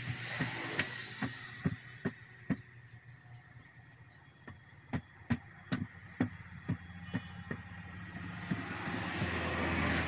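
Sharp metallic knocks and clacks from a steel tyre lever being worked against the bead of a truck tyre by hand, about two a second, in two runs with a short lull between them. A passing vehicle's steady noise is heard at the start and again near the end.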